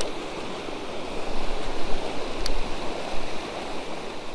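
River water rushing over a broken concrete dam and through the rapids below it: a steady rush of noise, with one knock about two and a half seconds in.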